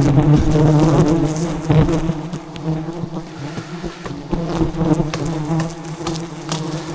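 Swarm of giant honey bees (Apis dorsata) buzzing in a dense, steady hum, loudest for the first couple of seconds and then easing a little, with a few scattered clicks.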